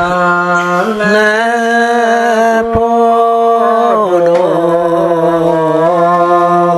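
A man chanting a Karen tha (sung poem) in long held notes, his pitch stepping up to a higher note, holding it, and dropping back down about four seconds in.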